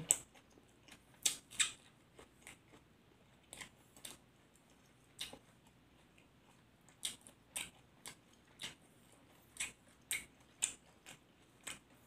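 Crunchy chewing of a raw cabbage leaf and chili eaten with pork laab: irregular crisp crunches, about one or two a second.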